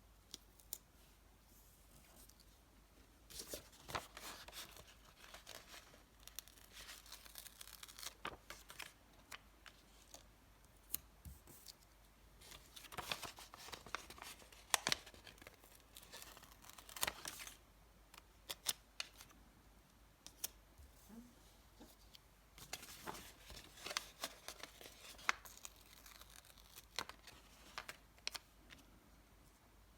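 Stickers being peeled off their backing sheet and pressed down: irregular short peeling rasps, paper crinkles and small clicks, coming in clusters.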